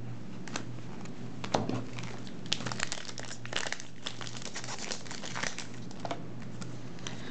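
Crinkling and light clicks of Cardfight Vanguard trading cards and their foil booster-pack wrapper being handled, in irregular short bursts over a steady low hum.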